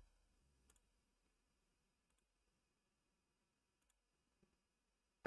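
Near silence: room tone, with three very faint clicks spread through it.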